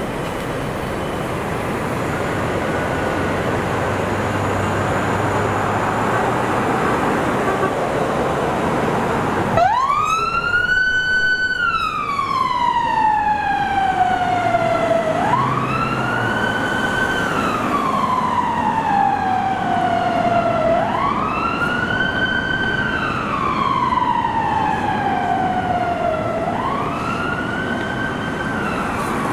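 Road traffic noise, then about ten seconds in a fire brigade vehicle's siren starts up in a slow wail. Each cycle rises quickly, holds briefly, then falls slowly, repeating about every five and a half seconds.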